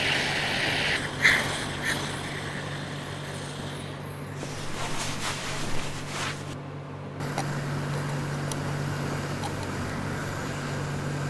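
Steady low hum of running bench equipment, with a few light clicks and taps of small tools on the phone.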